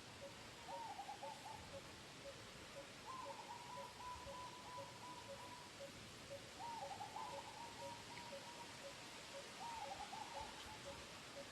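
Faint animal calls: four wavering, trilling tonal calls, the second held for nearly three seconds, over a steady series of soft pips about three a second.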